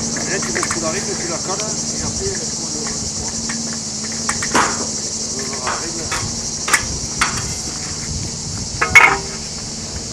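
A steady, high-pitched chorus of insects buzzing, broken by a few sharp knocks of masonry work as concrete blocks and a timber board are handled and set on a block wall, the loudest knock near the end.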